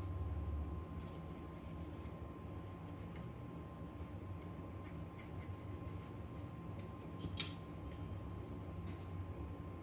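Light, irregular clicks and ticks of small hand tools working on a phone, with one sharper click about seven seconds in, over a steady low hum and a faint steady high tone.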